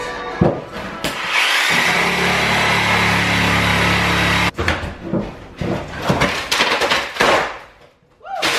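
A corded power saw runs for about three and a half seconds, starting about a second in, as it cuts through old linoleum and the plywood underlayment beneath it, then stops abruptly. Irregular cracks, creaks and scrapes follow as a cut sheet of flooring is pried up from the subfloor.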